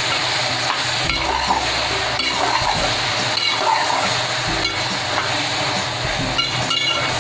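Boiled black chickpeas sizzling in ghee in an aluminium pressure-cooker pot, with a metal spoon scraping and clinking against the pot as they are stirred. This is the bhunai stage, frying the chickpeas until the ghee separates.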